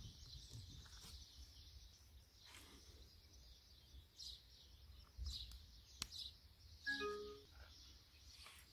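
Near silence with faint bird chirps in the background. A small click about six seconds in as the micro-USB plug goes into the phone, then about a second later a brief electronic tone from the phone as it starts charging.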